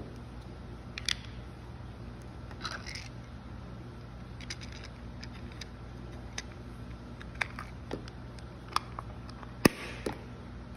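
Scattered clicks and light knocks of a black plastic pedicure-chair jet pump adapter box being handled as wires and orange wire nuts are pushed inside and the cover is fitted, with one sharper click near the end.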